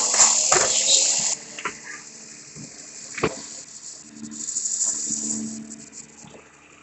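Excavator working, its engine and hydraulics running, with a burst of hissing at the start and another about four seconds in, and a single sharp knock about three seconds in.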